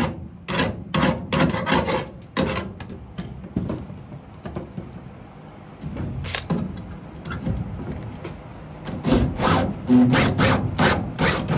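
Rough, irregular scraping and prying strokes of a hand tool working loose a rusted steel truck-bed crossmember. About ten seconds in, a drill with a spot weld cutter bit whirs briefly against the metal.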